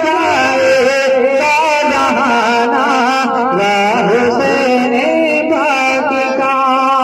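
A man's voice singing a long, ornamented naat phrase in a chant-like style, the pitch wavering and sliding continuously.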